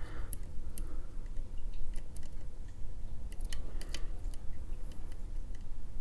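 A lock pick working the sliders of a Fontaine five-slider French tubular lock: small, irregular metallic clicks and light scraping as the sliders are nudged up and down under tension.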